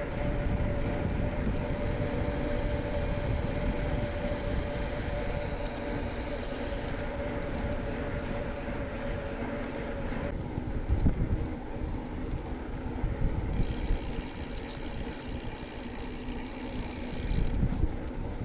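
Wind rushing over the microphone while riding a bicycle at speed, with a steady hum through the first half that stops about ten seconds in.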